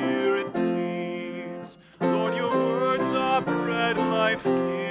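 A man singing a Lutheran hymn with keyboard accompaniment, with a short break between phrases about two seconds in.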